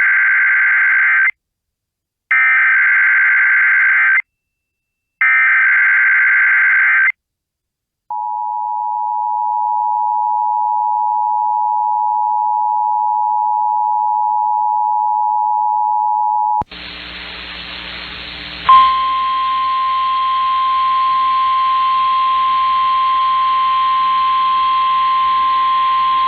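Emergency Alert System broadcast: three buzzing bursts of SAME header data, each about two seconds long, then the steady two-tone EAS attention signal for about eight seconds. After it comes a hiss of radio static, and about two seconds into the hiss a single steady tone starts, the 1050 Hz NOAA Weather Radio alert tone.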